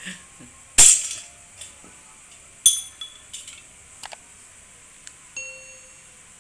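Metal knocks and clinks from a hand-lever slug press and its brass die. A sharp knock about a second in is the loudest. A ringing clink comes near the three-second mark, then a few light ticks, and a short metallic ring a little past five seconds.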